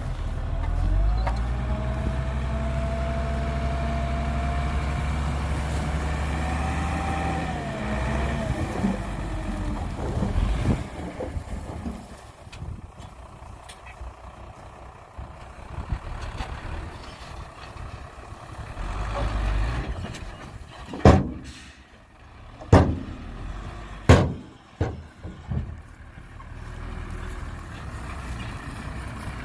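Heavy truck engine running low and steady, with a whine on top, for about eight seconds, then dying away. Later, three sharp knocks follow in quick succession, louder than the engine.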